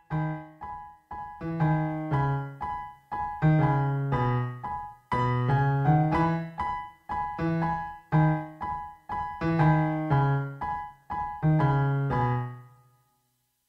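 Background piano music: a melody of separate notes, each fading away, that stops shortly before the end.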